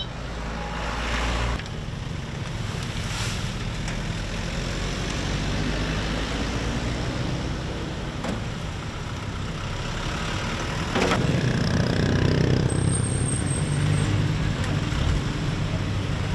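Road roller engine running steadily. About eleven seconds in there is a sharp short sound, after which the engine runs louder.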